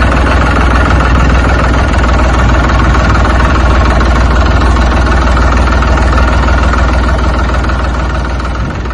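Farm tractor's diesel engine running steadily close by as it pulls a trolley loaded with soil. The sound eases off a little near the end as it moves past.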